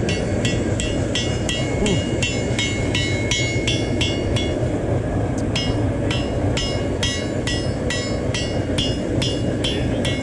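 Blacksmith's hand hammer striking hot steel on an anvil while forging a knife blade: a steady run of ringing blows, about three a second, with a short pause in the middle. A steady low rumble runs underneath.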